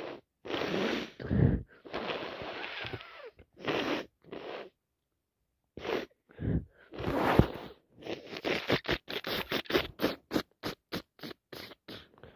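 A person with a congested nose from a cold sniffing and snuffling. A few long, noisy blasts come in the first few seconds, then after a short pause a run of quick, short sniffs, about three a second, getting fainter near the end.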